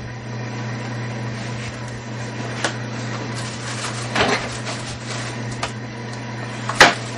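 Rummaging in an open refrigerator: a few scattered knocks and clatters as things inside are moved, over a steady low hum. The loudest knock comes near the end.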